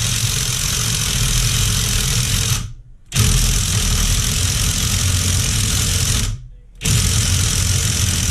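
Power impact wrench run in three long bursts of about three seconds each, with short pauses between, working to spin off a nut on a dirt-bike engine's crankshaft/counterbalancer side.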